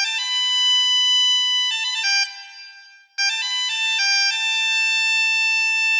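A short, high-pitched musical jingle in two phrases of ringing, ringtone-like notes. The first phrase fades out about two seconds in, and the second ends on a long held note.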